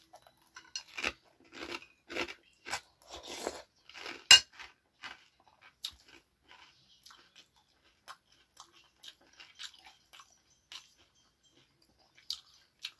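Close-up chewing and crunching of dry bread croutons, dense over the first four seconds with one sharp crunch about four seconds in. After that it thins out to faint, scattered small clicks.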